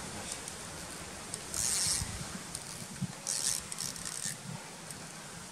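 Fishing reel buzzing in two short bursts, about one and a half and three and a half seconds in, as a hooked salmon is played on a bent rod.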